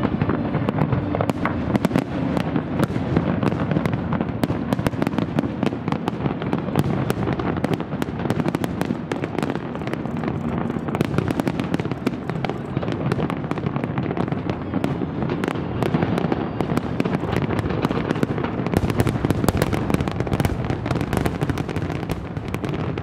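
Large aerial fireworks display: a continuous barrage of shell bursts and crackling, the bangs packing closer together near the end.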